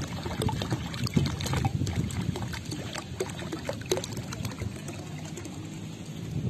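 Swimming pool water splashing and lapping, with many small drips and splashes over a low, steady rumble.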